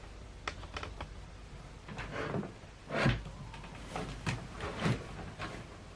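Handling noise: irregular light clicks and knocks of small hard objects being moved about, with a louder knock about three seconds in.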